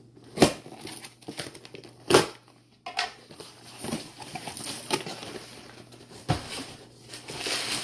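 Cardboard shipping box being opened by hand: flaps pulled back and contents rustling and crinkling, with several sharp knocks, the loudest about half a second and two seconds in.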